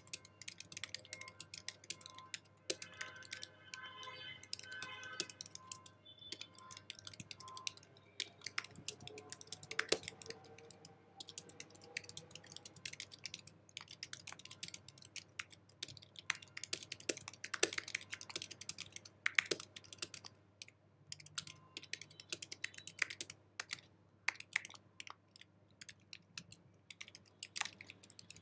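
Fast typing on an Apple keyboard: a quick, uneven stream of key clicks and taps.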